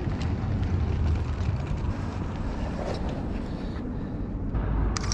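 Outdoor street ambience: a steady low rumble of city traffic with wind on the microphone, and a short sharp click near the end.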